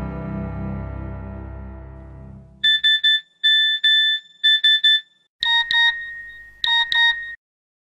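Background music fading out, then a mobile phone's text-message alert: steady beeps spelling "SMS" in Morse code (three short, two long, three short), the classic Nokia SMS tone. A second beep pattern in a different, lower tone follows, short-short-long twice.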